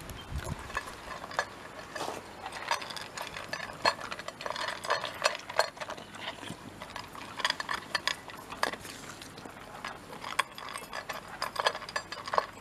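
Shiba Inu eating dry kibble from a stainless-steel bowl: irregular crunching and clicking, with kibble clinking against the metal.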